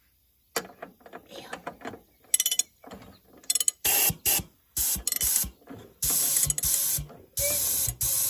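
A run of mechanical clicks and rattles, then repeated loud bursts of compressed air from an air gun, each up to about a second long, blowing out a cylinder of a Briggs & Stratton 26 hp Intek V-twin engine. The air is escaping through the intake, likely because the intake valve is open.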